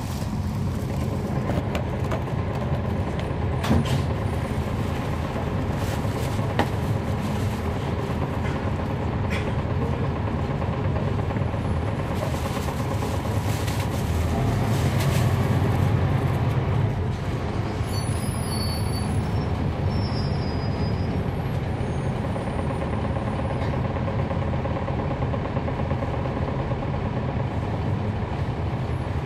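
The Cummins ISL9 inline-six diesel of a NABI 416.15 transit bus, heard from inside the bus as it drives, with a steady low drone that grows louder for a few seconds about halfway. A brief high squeal comes a little past halfway.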